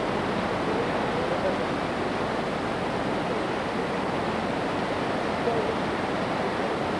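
Steady rushing of a fast river pouring through rocky rapids.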